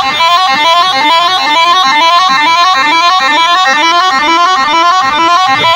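Loud music blasted through a competition DJ sound system: a reedy, horn-like lead melody playing a fast, repeating run of notes, with little bass under it.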